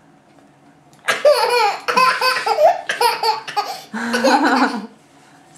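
Toddler laughing hard in a run of high-pitched laughs, starting about a second in and stopping shortly before the end.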